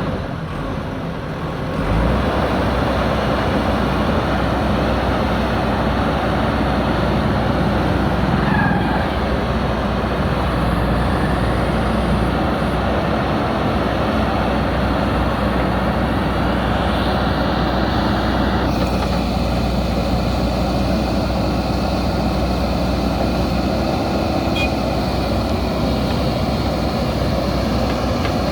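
JCB backhoe loader's diesel engine running steadily under work, a continuous low rumble. It steps up in loudness about two seconds in, and the sound turns duller near the end of the second third.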